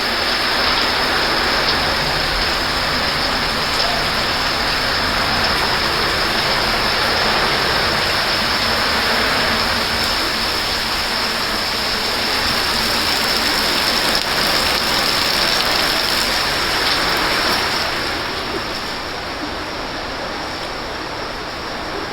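Steady rush of water from heavy rain and running floodwater, easing slightly near the end.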